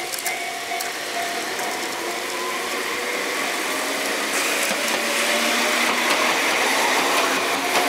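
Enoshima Electric Railway type 300 train passing close by: steady mechanical noise of its wheels running on the rails, growing louder about four seconds in.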